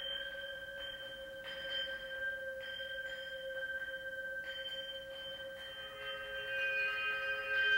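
Metal instrument ringing with sustained, bell-like tones that hold steady. About six seconds in, a second set of ringing tones joins and the sound grows louder.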